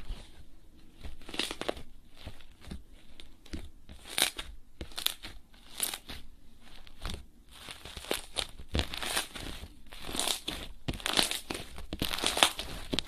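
Hands squeezing and working slime, with irregular crackling and popping clicks that come thicker in the second half.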